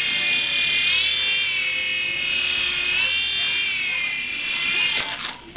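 Small electric motors of a PicooZ toy helicopter whining at a high pitch that wavers up and down as the rotor speed changes, cutting off suddenly near the end.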